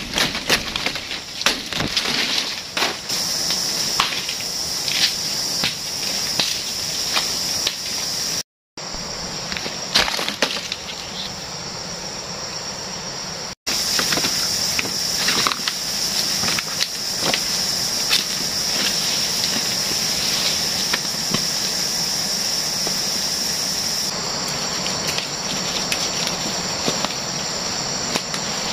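Steady high-pitched drone of jungle insects, with scattered sharp knocks, snaps and rustles as sago palm frond stalks are cut and handled.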